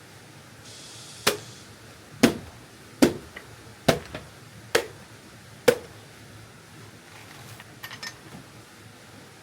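Six sharp knocks, evenly spaced a little under a second apart, like strokes of a blade or tool on a hard surface, followed by a few faint clicks.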